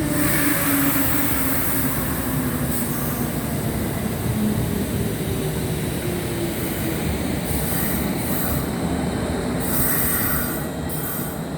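Kintetsu 1435-series and 2410-series electric train pulling out of the station: steady rumble of wheels and motors, a motor hum that slides slowly lower, and several short high-pitched wheel squeals.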